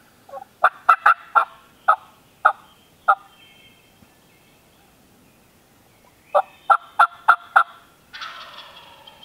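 Turkey calling: a run of about eight short, sharp notes, a pause, then five more, followed by a rattling wild turkey gobble that lasts under a second, just before the end.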